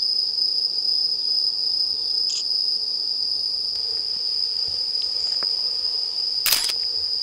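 Night insects, likely crickets, trilling in a steady high-pitched chorus at one unchanging pitch. Near the end there is a short rustle.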